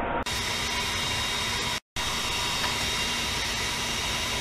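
Steady noise with a faint hum, unbroken except for a brief cut to silence about two seconds in.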